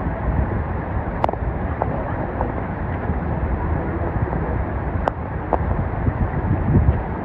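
Steady rush of flowing stream water, with a few sharp clicks about a second in and twice more around five seconds.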